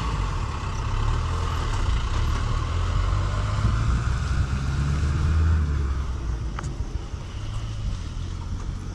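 Motorcycle engine idling, a steady low rumble that eases off about six seconds in.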